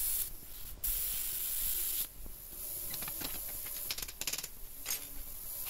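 Air plasma cutter hissing as it cuts through a steel horseshoe, stopping briefly and starting again in the first two seconds, then a weaker hiss. About four seconds in comes a quick run of sharp taps as slag is knocked off the cut edge.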